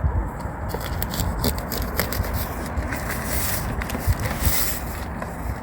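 Product packaging being opened and handled: scraping and rubbing with scattered clicks, and a longer scrape about three and a half seconds in.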